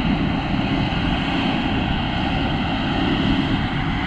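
A steady engine drone with a rushing noise, unchanging throughout.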